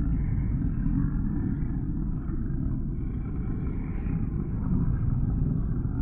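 Sound effect of creatures in a lair: a continuous low, rumbling growl with a fainter rasp above it, no single distinct roar standing out.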